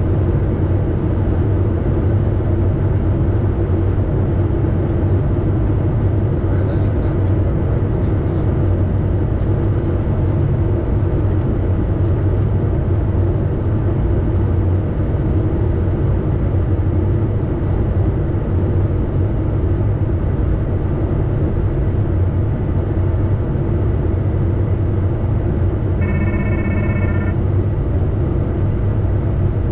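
Steady cockpit noise of a Bombardier Challenger 350 business jet in flight on its landing approach. Near the end a short electronic tone sounds for about a second.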